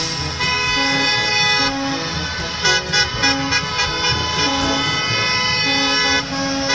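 Horns of school buses honking, several overlapping into a near-continuous blare, with shorter honks starting and stopping over a held one.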